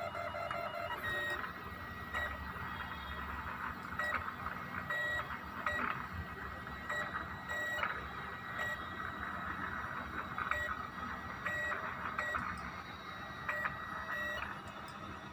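Stepper motors of a homemade 3D printer whining in short tones that keep changing pitch as the print head and bed move during printing, with a steady low hum underneath.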